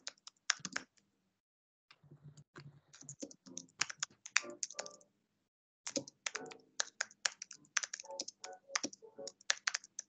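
Typing on a computer keyboard: runs of quick key clicks, broken by short pauses about a second in and again around the middle.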